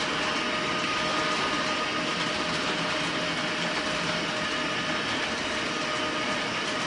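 Diesel locomotive engine sound from an HO model's MRC sound decoder, running steadily through the model's small speaker with a thin hum over a hiss.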